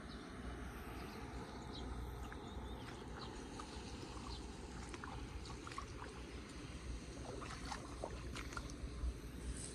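Outdoor ambience at a flooded roadside drain: steady, uneven low rumble of wind on the microphone, with scattered faint ticks and clicks through the middle of the stretch.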